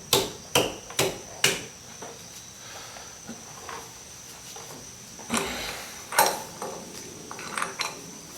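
Hammer blows on a socket wrench loosening a rear hub nut: four sharp metal strikes about two a second, then a few lighter clanks and clicks as the nut comes free.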